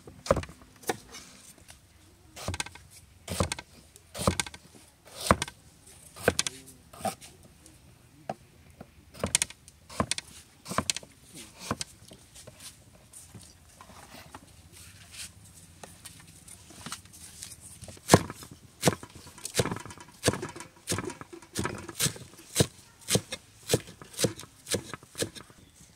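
Large kitchen knife chopping vegetables on a thick wooden board: sharp, separate chops, coming faster near the end.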